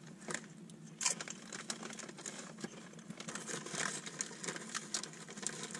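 Potato chips being crunched and a chip bag crinkling: irregular crisp crackles and clicks, sharpest from about a second in.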